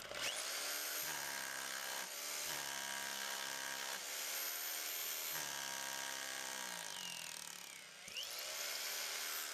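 Electric drill on an overhead drill machine pole, its bit drilling a hole up into a concrete ceiling. The motor runs steadily, its pitch sagging and recovering several times as the bit bites. It nearly stops once about eight seconds in, then picks back up.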